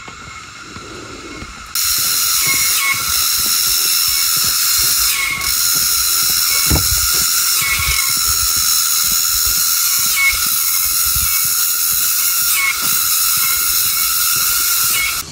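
Cicadas in tropical rainforest: a loud, dense, high-pitched buzzing drone that swells and dips in regular pulses about every two and a half seconds. It starts suddenly about two seconds in and stops suddenly just before the end.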